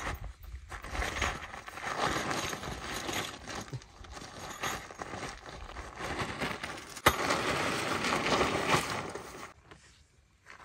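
Rustling and clattering of a camping tent being unpacked and pitched, with fabric rustling and poles and gear being handled. There are two sharp clicks, one at the start and one about seven seconds in.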